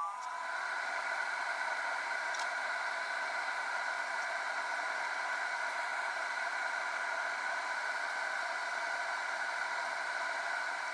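Cooling fan of a bench electronic DC load running under a 3 A battery discharge, heard fast-forwarded: a steady whooshing whir with a few faint whining tones.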